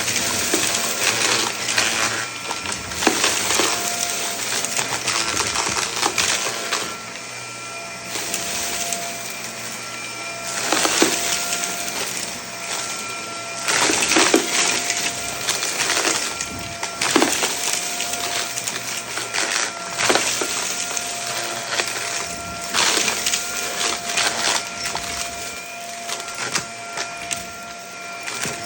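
Vacuum cleaner running with a steady motor whine while sucking up crunchy debris, which crackles and rattles through the nozzle in repeated loud bursts.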